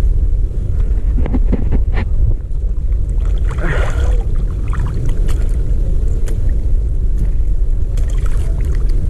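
Steady wind buffeting the camera microphone over choppy sea, with a few short knocks and clicks about one to two seconds in.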